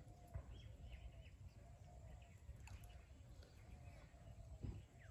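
Near silence: quiet outdoor ambience with faint, repeated animal calls.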